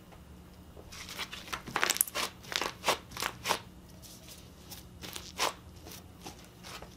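Green butter slime being pulled and squeezed in rubber-gloved hands and sticking to them, giving a quick run of sharp sticky clicks and pops. The run starts about a second in and lasts a couple of seconds, and a few more come around five seconds in.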